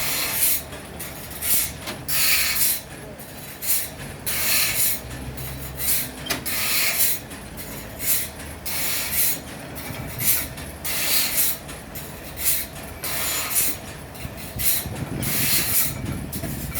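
Sawmill machinery running, with a low hum under repeated hissing bursts a little more than once a second and a heavier low rumble near the end.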